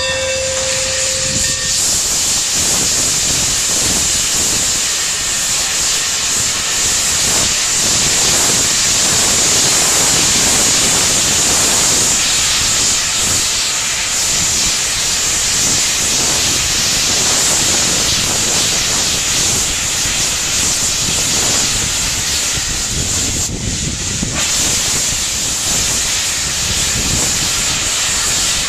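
Steam locomotive venting steam: a loud, steady hiss. A ringing tone dies away in the first second or two.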